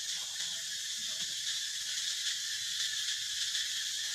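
A steady, high-pitched chorus of insects.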